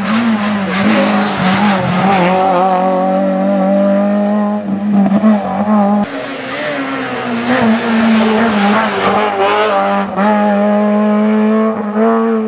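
Renault Clio hillclimb race cars at full throttle, their four-cylinder engines revving high with brief dips in pitch at each gearshift. One car passes, and a second car's engine takes over about halfway through.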